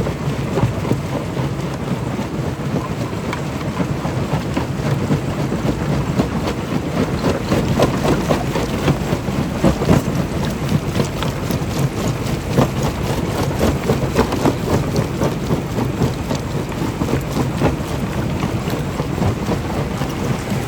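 Stone crusher running: a steady low mechanical hum under a dense, irregular clatter of rock being broken and knocked about.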